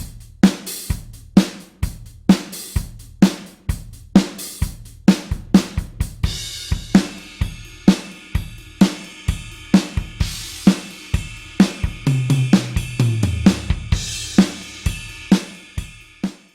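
Drum kit playing a steady rock beat of kick, snare and hi-hat. A ringing cymbal joins about six seconds in, and a little after twelve seconds a fill of lower drums steps down in pitch before the beat carries on, stopping abruptly at the end.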